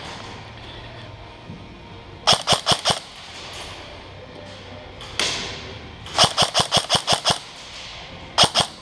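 Airsoft rifle firing in rapid bursts of sharp cracks: about five shots a couple of seconds in, a longer string of about eight past the middle, and two more near the end.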